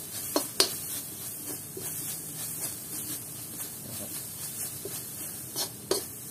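Metal spatula scraping and tapping against an aluminium wok while stir-frying dry aromatics, over a steady faint hiss. Sharp clinks come about half a second in and again near the end.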